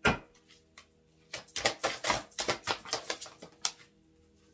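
Oracle cards being shuffled and handled: a sharp snap, then a quick run of papery clicks lasting about two seconds.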